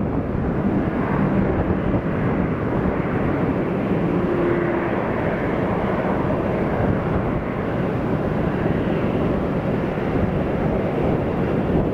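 Jet airliner engines running, a steady noise with no clear changes.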